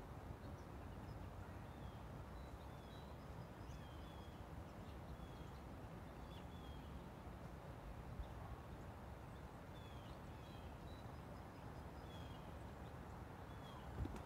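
Faint outdoor ambience: a low steady rumble with small birds giving short, high chirps about once a second. A brief bump comes near the end.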